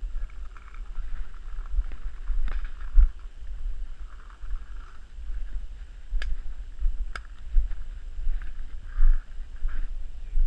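Uneven low rumble of wind and walking movement on a body-worn action camera's microphone, with a few sharp clicks about two and a half, six and seven seconds in.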